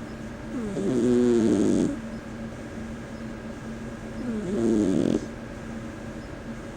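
Persian kitten snoring in its sleep: two loud snores about three seconds apart, each swelling and then cutting off sharply, with quieter breathing between them.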